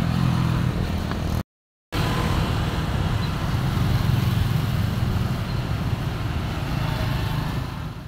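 Street traffic: motorbike engines running past on a city road, a steady rumble. The sound cuts out completely for about half a second around a second and a half in, then returns and fades out at the end.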